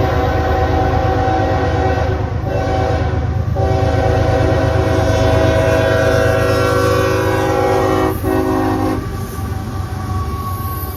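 CSX diesel locomotive's air horn sounding over the low rumble of the locomotives and freight train: a long blast ending about two seconds in, a short one, then a long blast that stops about nine seconds in, leaving the rumble of the train running on.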